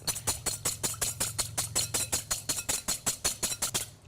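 A wire whisk beating egg white and orange bitters together in a bowl, clicking rapidly against the bowl at about six strokes a second, and stopping just before the end.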